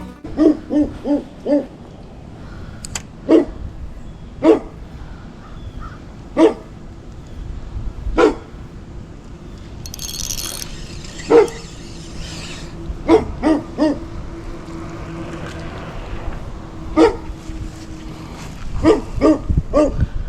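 A dog barking repeatedly: a quick run of four barks at the start, then single barks a second or two apart, with short bursts of two or three near the end.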